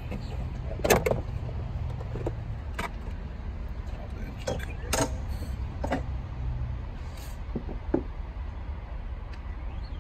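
Scattered clicks and knocks of hand work in an engine bay: loosened bolts being taken out and the plastic engine cover of a Ford 2.7 L EcoBoost being lifted off. The loudest knock comes about a second in, over a steady low rumble.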